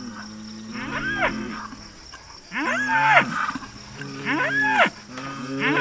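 Spanish fighting bulls bellowing: a run of about four loud calls, each rising and then falling in pitch, roughly one every second and a half, with a steady low drone beneath. These are the challenge calls of four-year-old bulls squaring up to fight.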